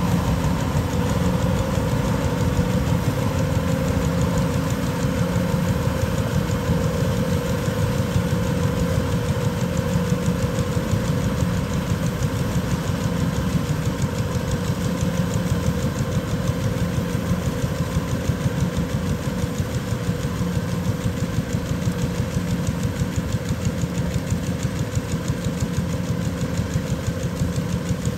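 Kubota DC-105X combine harvester running steadily under load as it cuts and threshes rice: an even engine drone with a steady mid-pitched tone over it.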